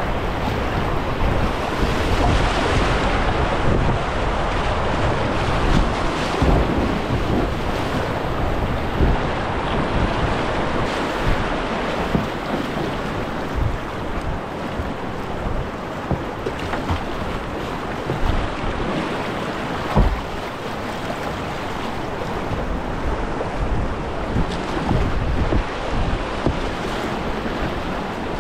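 Rushing river water of class I–II rapids heard from a kayak on the water, with wind buffeting the microphone and occasional low thumps.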